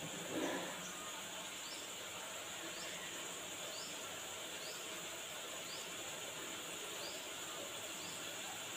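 Faint short high chirps repeating about once a second over steady background hiss, from a small chirping creature. A brief soft knock comes just after the start.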